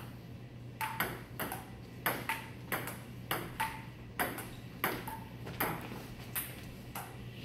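Table tennis rally: the ball clicking in quick alternation off the paddles and the table, about two to three hits a second, starting about a second in and ending near six seconds.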